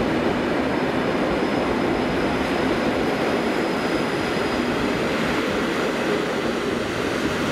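PKP Intercity passenger coaches rolling past along the platform: a steady rumble of wheels on rails.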